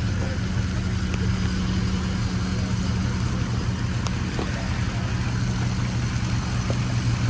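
Engine of a full-size off-road pickup truck running steadily at low revs.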